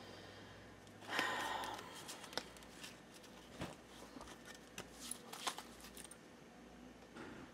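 Tarot cards being handled: a short papery rustle of the deck about a second in, then scattered light clicks and taps as single cards are pulled out and turned over.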